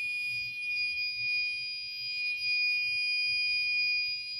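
Fire alarm horn sounding a loud, continuous, unbroken high-pitched tone rich in overtones, set to its continuous signal rather than a pulsed pattern.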